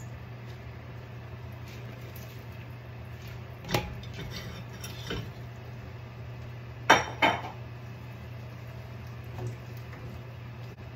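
Cubed potatoes tipped into a non-stick wok and stirred with a wooden spatula: a few knocks and clatters against the pan, the loudest pair about seven seconds in, over a steady low hum.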